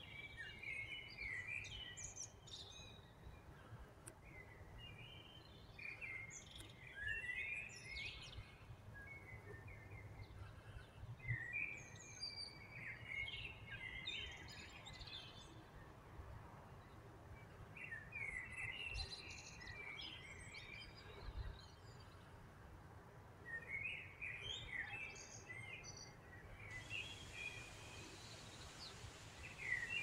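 Songbirds singing faintly in short bouts of quick chirping notes, one bout about every five or six seconds, over a faint low background rumble.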